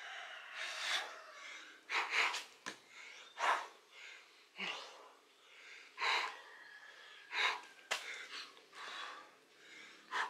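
A person breathing hard from exertion: heavy, noisy breaths about every second or so, with a couple of brief knocks in between.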